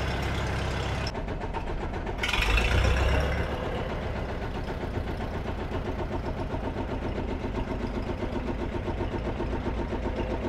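McCormick-Deering W4 tractor's 152 cubic inch International petrol engine idling steadily, with a brief swell in loudness about two and a half seconds in.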